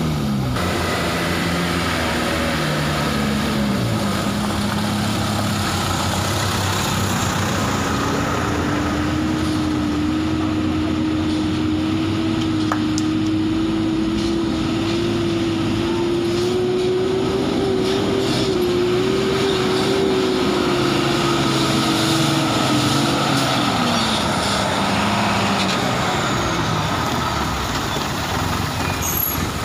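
Diesel truck engines labouring through deep mud. One engine's note climbs slowly and holds high for several seconds under heavy load, then drops away about three quarters of the way through.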